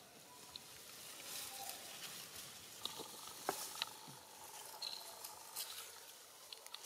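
Dry leaf litter rustling and crackling faintly, with scattered sharp clicks, the sharpest about halfway through.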